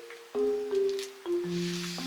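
Background music: a slow, gentle melody of single held notes on a mallet-like or keyboard instrument, a new note every half second or so.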